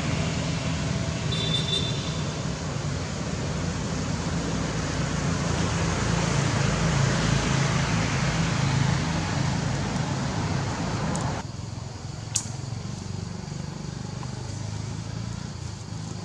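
Steady outdoor background noise, a low rumble under an even hiss like distant road traffic. About eleven seconds in it abruptly drops and turns thinner, and a single sharp click follows about a second later.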